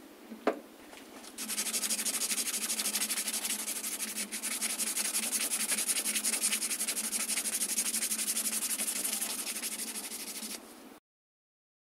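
Hand-sanding a steel knife blade clamped in a knife maker's vise: a steady scratchy rasp of rapid back-and-forth sandpaper strokes, starting about a second and a half in and stopping suddenly near the end. A single sharp knock just before the sanding starts is the loudest moment.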